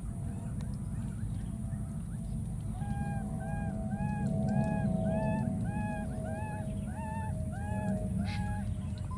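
An animal calling in a steady series of about a dozen short, arched notes, roughly two a second, starting about three seconds in, over a low rumble.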